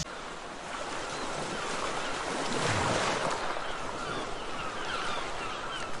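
Surf washing in, with a louder surge of a wave about halfway through. A rapid series of short, falling bird chirps runs in the background through the second half.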